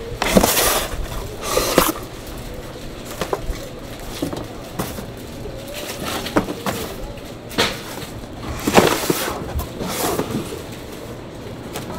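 Cardboard fruit box and pineapples being handled: irregular bursts of cardboard rustling and scraping with scattered knocks. The loudest come just after the start and about nine seconds in.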